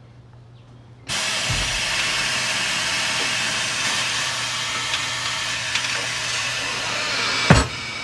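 Pneumatic tire changer's bead breaker working: compressed air hisses loudly and steadily from about a second in as the blade presses into the tire's sidewall, with a sharp thump near the end.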